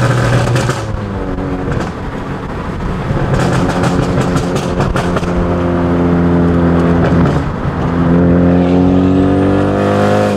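Big-turbo Ford Focus ST's 2.0-litre turbocharged four-cylinder pulling hard under acceleration, heard from inside the cabin: the revs climb, drop at a gear change about seven seconds in, and climb again. With the blow-off valve removed, the turbo flutters when the throttle is lifted.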